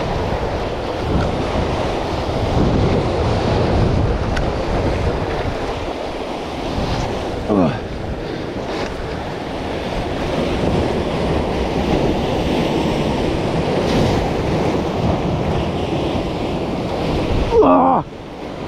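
Sea surf breaking and washing over shoreline boulders, with wind buffeting the microphone. A short voice-like sound comes near the end.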